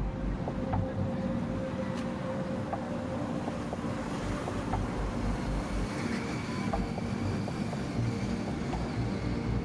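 Docked car ferries' engines running, a steady low hum with a faint held tone, while wind gusts buffet the microphone.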